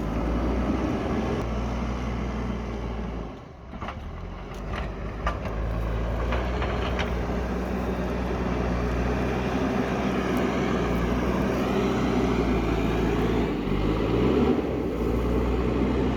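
Diesel engine of an earthmoving machine working, running steadily. It drops off briefly about a quarter of the way in, a few sharp clanks follow, and the engine revs up near the end.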